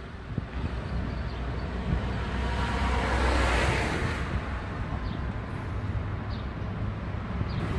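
Outdoor road traffic noise with low rumble, and a car passing that swells and fades about three seconds in.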